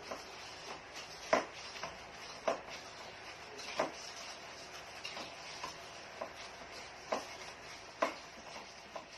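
Long spoons stirring halo-halo (ice, milk and sweet fillings) in clear plastic cups, with short clinks and knocks about once a second as spoon meets ice and cup.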